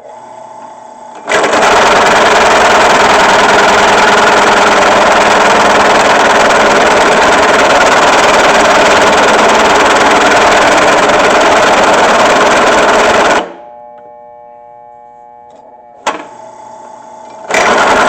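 Drill press bit cutting into steel under heavy load: a loud, harsh cutting noise starts about a second in and cuts off suddenly after about twelve seconds. In the pause the drill press motor hums steadily with a single click, and the loud cutting noise starts again near the end.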